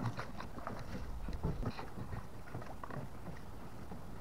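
Oars knocking and splashing irregularly as a small folding wooden rowing dinghy is rowed, over a steady low rumble.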